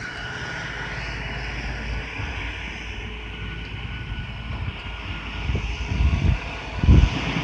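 LS XR4155H compact tractor's diesel engine running steadily under load while plowing snow, with a few short low rumbles swelling in near the end.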